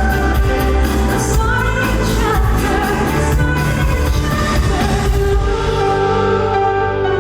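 Live pop ballad played by a band over a PA, with a female lead vocal gliding in the first half; after about six seconds the band thins out, leaving held keyboard chords as the song winds down.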